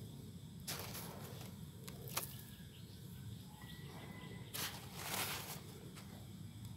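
Bare hands mixing and pressing loose potting mix of organic fertilizer and rice husk in a concrete pot. A few soft rustling scrapes, the longest about five seconds in.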